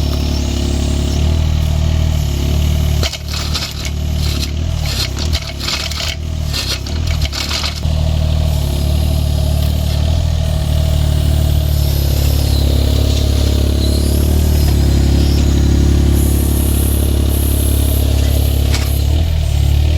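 An engine running steadily, with a cluster of knocks and clatter from about three to eight seconds in.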